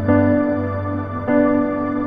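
Calm new-age background music with sustained chords that change about every second and a quarter.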